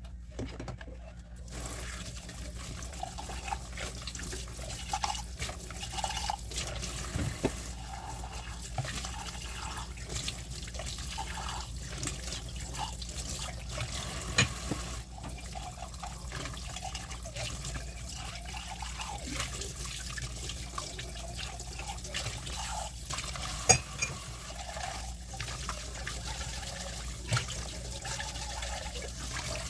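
Kitchen tap running into a sink while dishes are washed by hand, the water starting about a second in, with frequent clinks and knocks of dishes and utensils against each other and the sink, a couple of them sharper than the rest.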